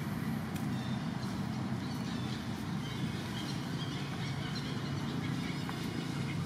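Steady low hum of a running engine, with faint scattered ticks over it.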